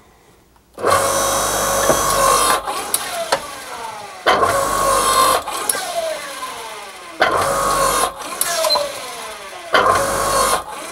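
A 7-ton electric log splitter's motor and hydraulic pump run under load as its narrow die presses a hot steel billet in several repeated strokes, starting about a second in. Each stroke has a loud stretch followed by a whine that slides down in pitch as the ram works against the metal.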